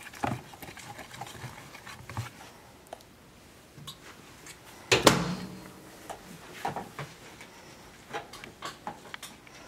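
Metal spoon stirring and scraping a thick melted chocolate, peanut butter and butter mixture in a plastic container, with scattered small clicks and scrapes. A louder knock about five seconds in.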